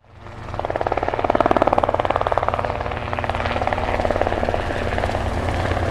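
Helicopter rotor sound, a fast steady chop over a low drone, fading in at the start.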